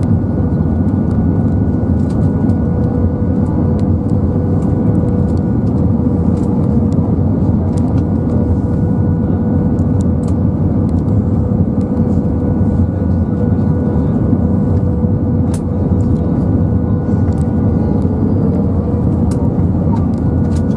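Steady cabin noise of an Airbus A320-232 on final approach with flaps extended: the drone of its IAE V2500 engines under a loud rush of air, with a faint steady hum throughout.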